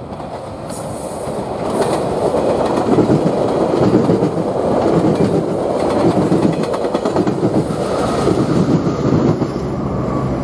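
Metrolink commuter train of bilevel coaches passing close by, its wheels clacking over rail joints under a steady rumble of running noise. It builds over the first few seconds, holds loud, and eases off slightly near the end.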